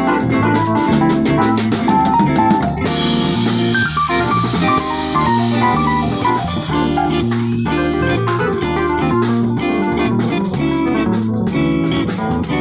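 Live band music, guitar over a drum kit keeping a steady beat, with a cymbal wash about three seconds in.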